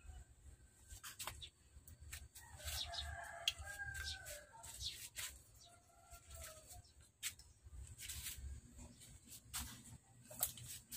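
Faint animal calls, a few short ones bunched a few seconds in and one more a little later, among many scattered sharp clicks.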